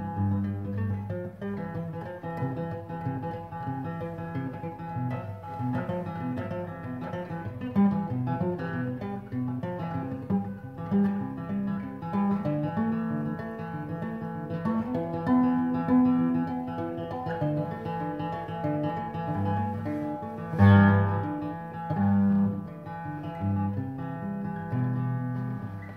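Acoustic guitar fingerpicked, the thumb playing bass notes that alternate with the first finger on the upper strings, in a steady flow of separate notes. One louder, sharper chord is struck about twenty seconds in.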